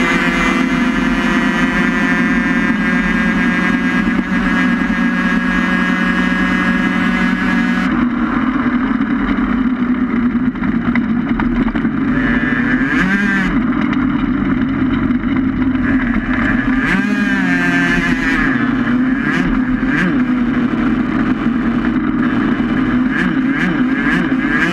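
Vehicle running at speed, heard close to its front wheel: a loud, steady drone with a couple of brief dips and rises in pitch about halfway through.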